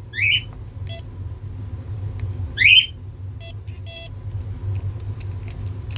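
Welock smart lock cylinder's fingerprint reader beeping: one short beep about a second in, then two more between three and four seconds in. Two louder, high chirps sweeping downward, one at the very start and one a little before three seconds in, over a steady low hum.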